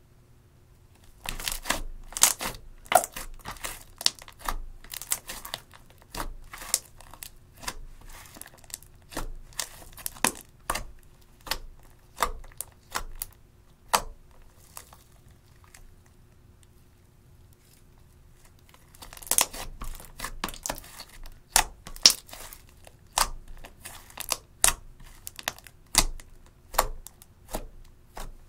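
Clear slime mixed with red eyeshadow being stretched, poked and pressed by hand, giving many sharp sticky clicks and pops. They start about a second in, pause for a few seconds around the middle, then start again.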